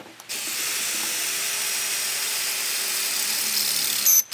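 Electric drill running steadily for nearly four seconds, drilling holes that are then tapped for threads. It stops with a brief louder noise near the end.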